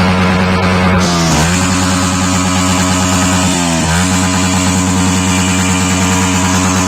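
Yamaha R15 V3's single-cylinder 155 cc engine revved and held high. Its exhaust note dips briefly and climbs back twice as the throttle is eased and reopened. The engine runs without a catalytic converter.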